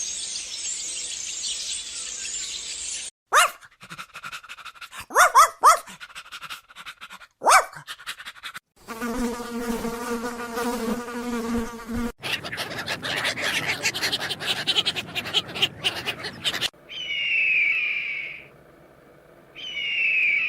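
A run of short animal-sound clips: a high hiss, a few sharp sweeping yelps, about three seconds of steady insect buzzing, a noisy stretch, then two calls falling in pitch near the end.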